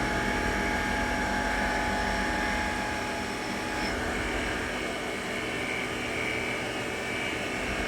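CNC lathe running steadily with its spindle turning during a finishing cut on a steel shaft, a constant machine hum with a thin whine that stops about four seconds in.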